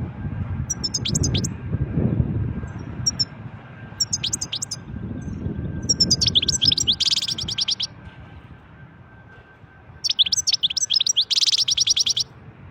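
European goldfinch singing in separate bursts of rapid twittering, the two longest phrases ending in a fast buzzy trill. A low rumble sits under the song in the first half.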